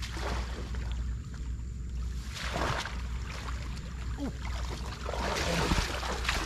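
Water splashing and sloshing in repeated swells over a steady low hum.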